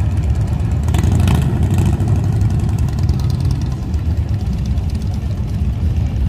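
Motorcycle engines running in a steady low rumble, briefly louder about a second in.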